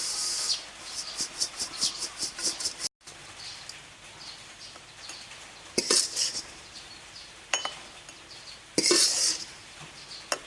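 A spoon clinking and scraping in a mixing bowl of dry spice rub: a quick run of even taps at first, then a few separate clinks and a couple of longer scrapes.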